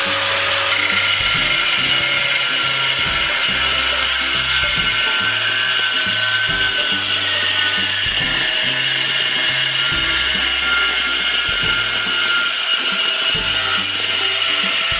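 Angle grinder with a diamond cutting wheel running steadily at speed while cutting through a ceramic tile: a constant high whine over a dense grinding noise.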